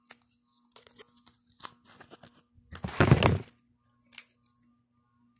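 Handling sounds as a folding credit card knife is worked open: scattered small clicks and light rustles, with one loud rubbing, scraping noise lasting about a second near the middle.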